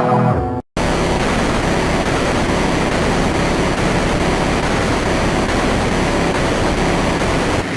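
Electronic music cuts off into a brief silence, then a loud, steady hiss of static-like noise with no tune or beat.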